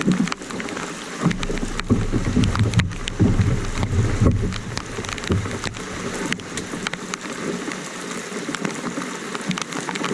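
Heavy rain falling, a dense hiss full of sharp individual drop ticks. A low rumble swells under it from about a second in and fades by about six seconds.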